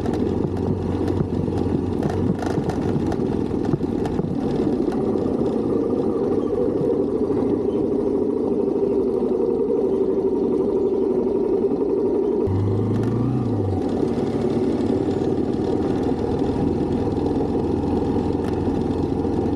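Motorcycle on the move, its engine and steady rush of wind on the microphone, with a short low tone that rises and falls about two-thirds of the way through.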